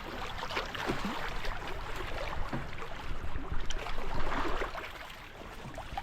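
Small lake waves lapping and splashing irregularly against the shore and jetty, with strong wind rumbling on the microphone.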